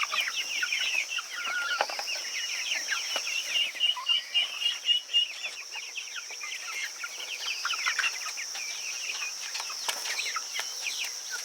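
A flock of poultry calling: dense, overlapping high peeping and clucking, many short calls dropping in pitch, with a steady high-pitched buzz behind them.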